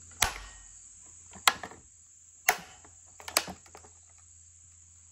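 Four sharp knocks, a hand tapping and patting on the plastic top handles and covers of Husqvarna chainsaws. A steady high-pitched whine runs behind them.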